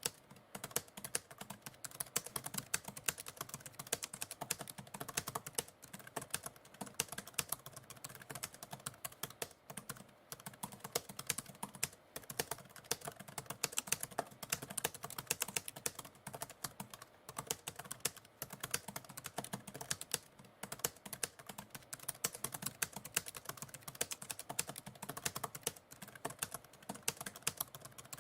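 Typewriter keys being typed in rapid, irregular clacking, with a few short pauses between runs of keystrokes.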